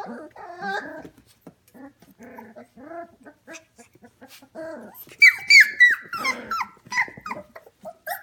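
A litter of 25-day-old F1 Goldendoodle puppies whining and yelping, many short high squeaks overlapping one another. They are quieter in the middle and grow louder again about five seconds in.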